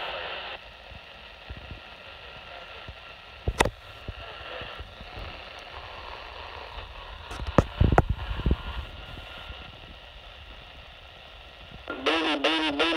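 RadioShack TRC-241 handheld CB radio receiving AM channel 19 through its small speaker. A transmission cuts off just after the start, leaving a steady hiss of static broken by a few knocks. About a second before the end, a loud, warbling, distorted transmission comes in.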